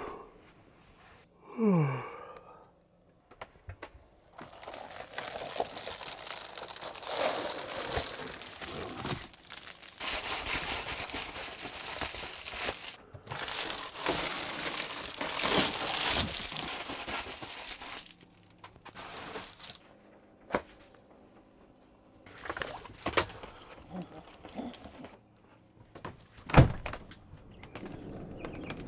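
Someone moving about inside a small camper van: long stretches of rustling and wiping noise, then several sharp thunks and clicks, the loudest near the end. A short falling tone sounds about two seconds in.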